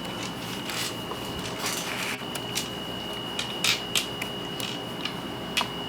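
Scattered light clicks and taps of tweezers handling small cut pieces of lead wire, over a steady high-pitched tone.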